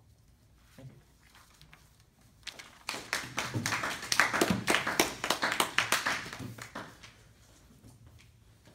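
A small group clapping for about four seconds, starting a couple of seconds in and fading out.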